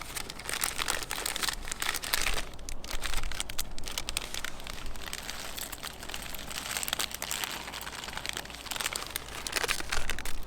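Plastic packaging of an instant ramen packet crinkling and rustling in irregular bursts as it is handled.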